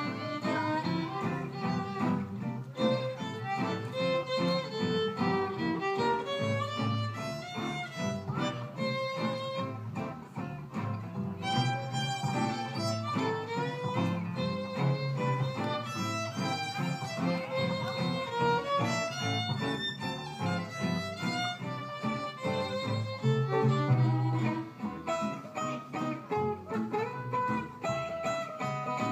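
Live acoustic band playing: a violin carries the melody over strummed acoustic guitars and plucked upright bass.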